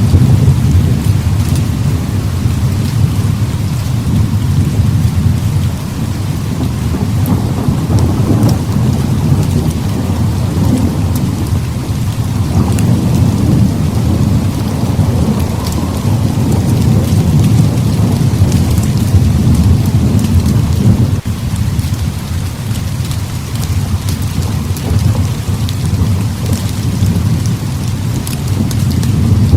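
Heavy rain falling steadily, with rolling thunder rumbling low underneath, swelling and fading several times.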